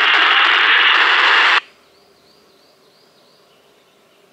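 Baofeng UV-82 handheld radio's speaker giving a loud burst of static for about two seconds, cutting off sharply: the other station's reply on the 2 m band arriving too weak to make out, reported as a 1.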